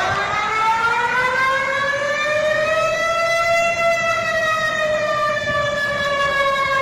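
Warning siren sounding one long, loud wail, its pitch climbing slowly for the first half and then easing down a little.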